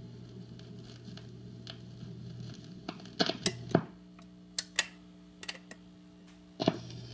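Tube record player humming steadily after the record has finished, with a cluster of mechanical clicks and knocks about three to four seconds in. Lighter clicks follow, then a louder click near the end as the hum changes.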